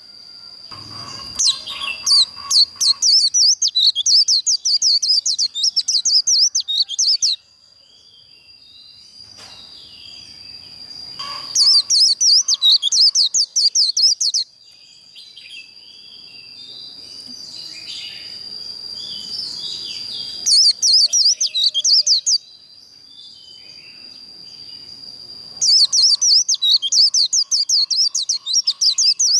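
White-eye (vành khuyên) singing its rapid, twittering 'líu' song in four separate bouts, with a steady high-pitched tone running underneath throughout.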